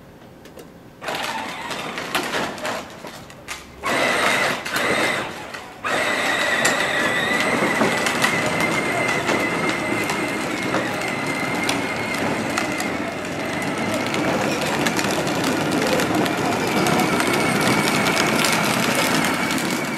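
Battery-powered John Deere Gator ride-on toy driving over asphalt: plastic wheels rolling and grinding on the pavement, with a steady electric-motor whine. It starts about a second in and is steady and louder from about six seconds in.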